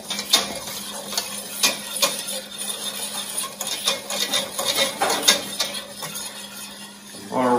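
Wire whisk stirring a custard base of egg yolks, milk and cream in a stainless steel saucepan, its wires clicking against the pan's sides at an uneven pace of about one or two clicks a second. A steady low hum runs underneath.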